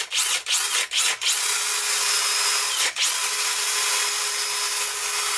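Bosch 18-volt cordless drill running fast, spinning a fidget spinner mounted on a bit in its chuck. The motor sound is steady, with a fixed whining tone, and drops out for an instant about four times in the first second and a half and once more about three seconds in.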